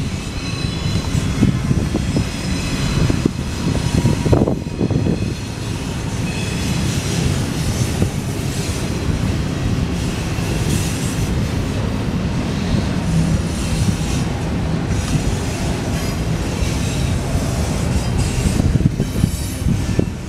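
Union Pacific double-stack intermodal freight train rolling past steadily, a continuous rumble of wheels on rail with a clickety-clack over the joints and thin, high wheel squeal.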